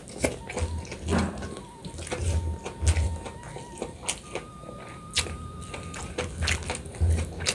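Close-up chewing of a mouthful of food eaten by hand, with many small crunching and wet mouth clicks and soft low thuds.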